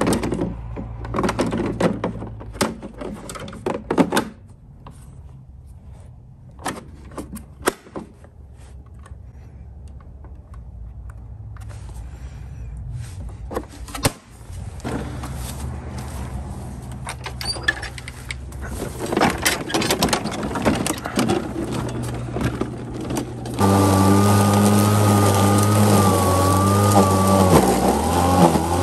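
Clicks and knocks of the plastic battery-compartment lid and the 80 V lithium battery of an Atlas battery-powered lawn mower being handled. Near the end the mower's electric motor and blade run loudly with a steady whine, its pitch sagging and recovering as it cuts through tall grass.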